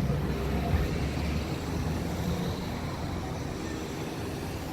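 Low rumble of a motor vehicle, growing slowly quieter.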